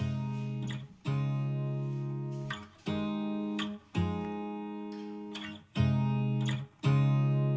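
Background music: acoustic guitar strumming chords, each strum left to ring and fade before the next one.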